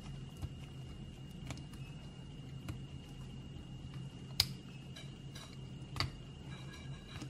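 A thin metal pick scraping and clicking against the rusted body of a diecast model car, in sparse light ticks, with two sharper clicks about four and six seconds in. A steady low hum runs underneath.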